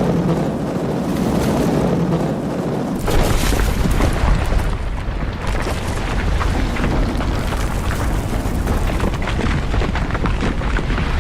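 A loud, continuous deep rumble with dense crackling, growing heavier about three seconds in.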